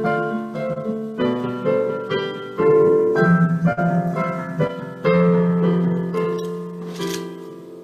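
Solo piano playing a quiet, hymn-like piece in chords, each struck about once a second and left to ring and fade. A brief rustle comes about seven seconds in.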